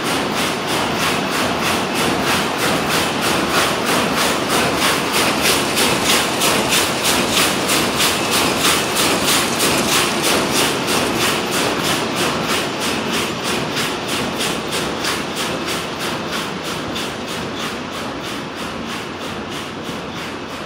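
Van de Wiele VTR33 carpet weaving machine running at speed: a fast, even mechanical clatter beating about three times a second, one beat per weaving cycle. It grows somewhat quieter over the last few seconds.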